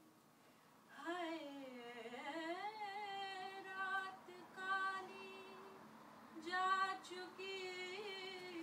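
A woman singing unaccompanied, a single voice gliding between long held notes, starting about a second in and breaking off briefly past the middle.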